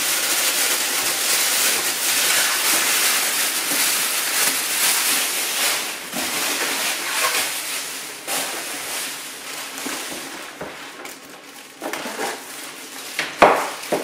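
Plastic bag crinkling and rustling as it is pulled off an espresso machine. It dies down after about eight seconds into scattered small handling clicks, with a single sharp knock near the end.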